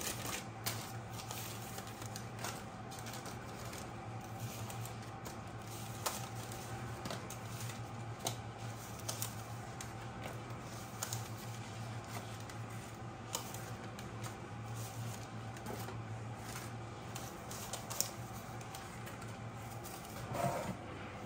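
Paper tulip muffin liners rustling and tapping as they are set one by one into a metal muffin tin: scattered light clicks over a steady low hum.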